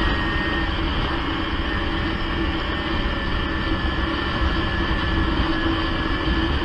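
Snowmobile engine running at a steady cruising speed, with track and wind noise, heard muffled through a waterproof camera housing: an even drone with a held hum.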